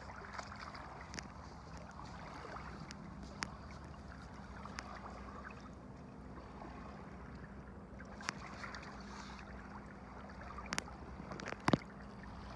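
Faint shoreline ambience at the edge of shallow water: a low steady rumble and wash, with a few small sharp clicks scattered through.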